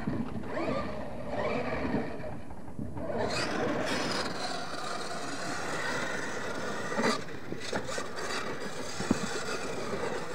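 Radio-controlled monster truck driving over loose dirt, its motor and tyres making a steady noisy rush from about three seconds in, with a few short knocks.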